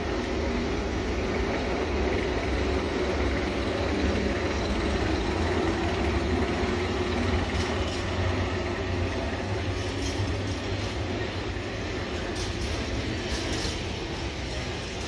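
A train running through the station: a steady rumble of wheels on the rails that eases off slightly near the end.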